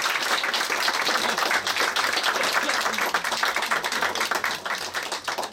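Audience applauding after a song, thinning out near the end.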